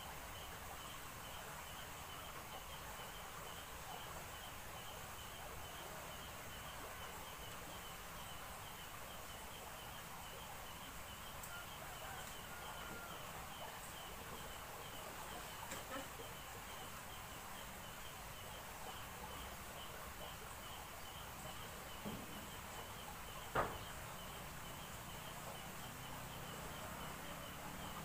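Faint night-time outdoor background: a steady hiss with a high chirp repeating evenly a few times a second, and one sharp knock about three-quarters of the way through.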